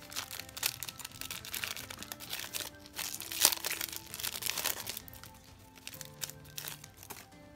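Foil wrapper of a Panini NBA Hoops retail trading-card pack being torn open and crumpled, a dense run of sharp crinkling crackles that thins out about five seconds in. Soft background music plays underneath.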